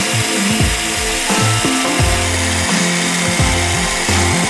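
Electric hand blender with a wire whisk attachment running steadily, whipping cream with powdered sugar, under background music.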